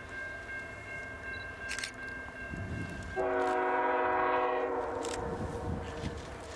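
A diesel locomotive's multi-chime air horn on an approaching freight train sounds one blast of about a second and a half, about three seconds in, and trails off in an echo.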